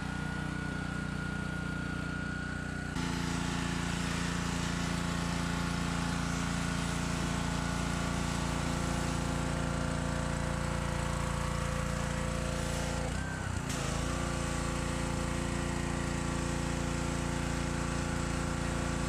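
Small Honda engine on a gas pressure washer running steadily. About three seconds in, the spray gun's trigger is pulled: the engine settles into its note under load and the hiss of the water jet on the truck joins it. About two-thirds through, the engine's pitch briefly wavers and its level dips, then it steadies again.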